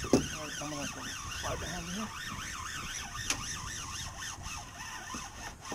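Fishing reel being cranked against a hooked rockfish (striped bass), a whirring whine that rises and falls in pitch about three to four times a second.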